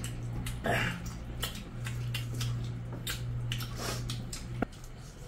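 Eating sounds: fingers squishing and mixing curried rice against steel plates, with scattered short clicks and mouth smacks. A steady low hum runs underneath and cuts off suddenly near the end.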